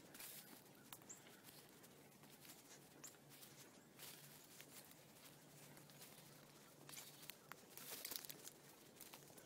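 Faint rustling and crackling of dry corn stalks and leaves brushed aside while walking through a cornfield, with footsteps, swelling briefly about four seconds in and again around eight seconds.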